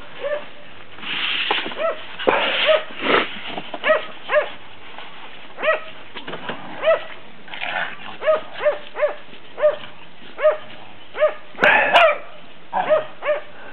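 A dog barking over and over in short, high yaps, about one to two a second, with a brief knock and rustle near the end.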